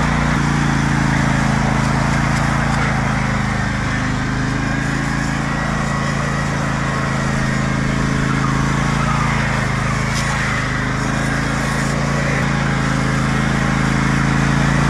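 Riding lawn mower's small engine running steadily under way, its note dipping slightly in the middle and rising a little near the end.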